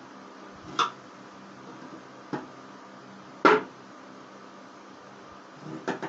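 Pliers gripping and prying at the crimped lid of a sealed sheet-metal money box (gullak): four sharp metallic clanks and scrapes, the loudest about halfway through, with a quick double knock near the end.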